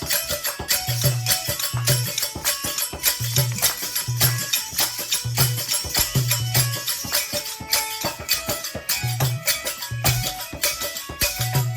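Instrumental passage of a Rajasthani folk bhajan with no singing: fast jingling, shaker-like percussion over a low drum beat that repeats about twice a second, with short melodic notes.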